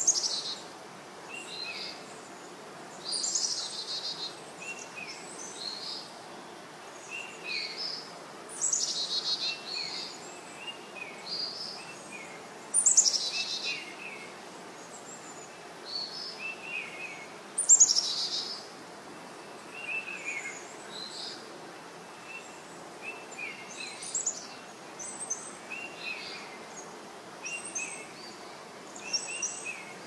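Songbirds singing: loud, short, high song phrases that fall in pitch come every four to five seconds, with many shorter chirps from other birds in between. A steady background noise runs underneath.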